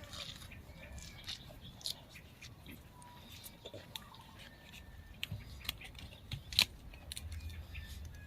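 Close-up chewing of raw vegetables: scattered small crunches and wet mouth clicks, the sharpest about six and a half seconds in.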